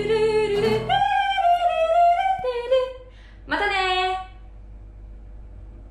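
A woman singing a playful wordless 'ru-ru-ru' sign-off in held, sliding notes, with one last short note about three and a half seconds in. Background guitar music stops about a second in.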